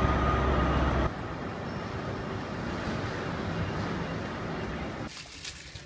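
Railway train and station noise: a loud steady low hum for about the first second, then after an abrupt cut a quieter, steady rushing noise that drops away again near the end.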